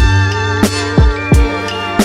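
Background music: a hip-hop style beat with a kick drum hitting about three times a second under sustained guitar-like notes.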